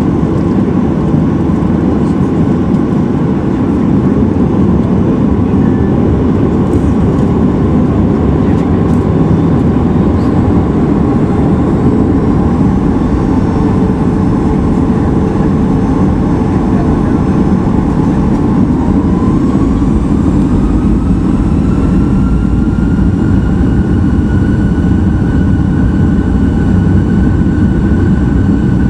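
Boeing 737-800 cabin noise heard from a window seat over the wing: the CFM56-7B engines give a steady low rumble. About two-thirds of the way through, a whine rises and then holds steady as the engines spool up.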